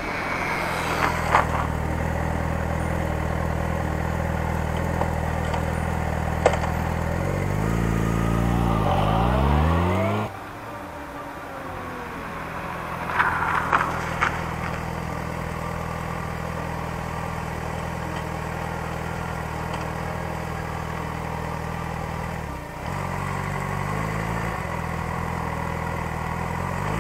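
Yamaha FZ6N's 600 cc inline-four engine running, its note gliding up and down about eight seconds in. The sound then drops suddenly, and a steady idle carries on with a brief clatter partway through.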